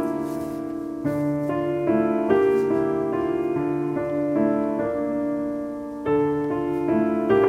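Background piano music: a calm keyboard melody over chords, notes changing about every half second.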